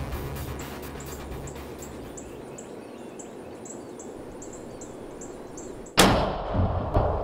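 Background music fading, then a single rifle shot about six seconds in, ringing off, with another loud bang about a second later.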